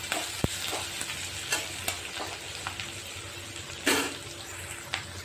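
Chopped onions and curry leaves sizzling in hot oil in a kadhai as a metal spatula stirs them, with scattered scrapes and clicks of the spatula on the pan and one louder knock about four seconds in. The onions are frying until they turn light pink.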